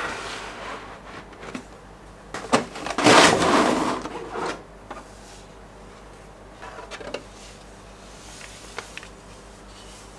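Toy packaging being handled and unpacked: bursts of rustling and scraping, loudest from about three to four and a half seconds in, with a sharp click just before that and a few small clicks later.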